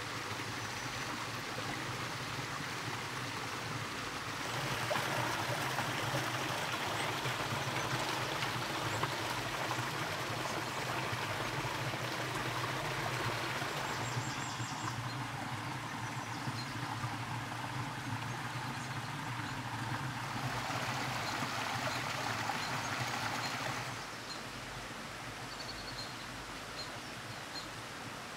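Small forest stream babbling and trickling steadily. It is louder from about five seconds in until a few seconds before the end, with a few faint high bird chirps over it.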